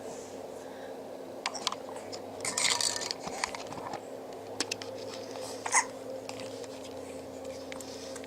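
Baby girl hiccupping: a few short, sharp hiccups several seconds apart, the loudest about six seconds in, among small clicks and rustles.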